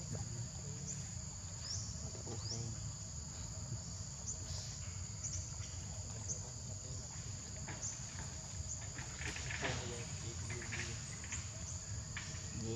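Steady chorus of insects such as crickets or cicadas, a continuous high whine with short rising chirps about once a second. A few soft rustles come about three-quarters of the way through.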